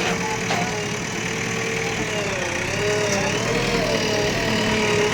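Bulldozer engine running at work, its pitch wavering up and down as the load changes. It gets a little louder about halfway through.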